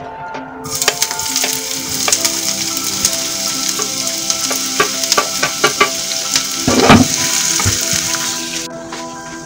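Chopped onion frying in hot sunflower oil in a frying pan: a loud, steady sizzle starts about a second in, with knocks and scrapes of a wooden spoon stirring, the loudest about seven seconds in. The sizzle cuts off abruptly near the end, and soft background music plays underneath.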